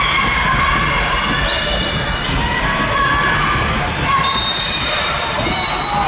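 Basketball game in a large, echoing hall: the ball dribbling on the hardwood court, short squeaks of sneakers, and voices in the background.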